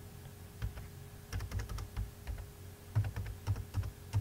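Computer keyboard being typed on: a single tap, then two short runs of keystrokes, about a second and a half in and again from about three seconds, as numbers are keyed in.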